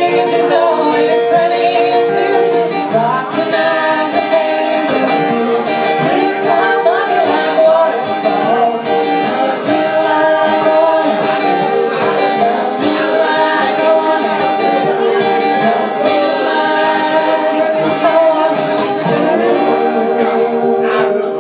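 A band playing a song: plucked guitar with voices singing.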